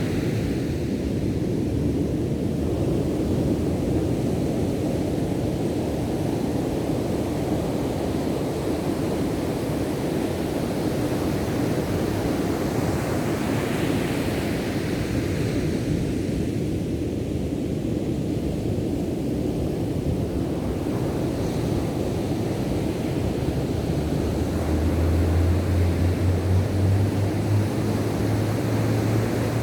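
Ocean surf rushing steadily, swelling brighter about halfway through as a wave breaks. A low steady hum joins near the end.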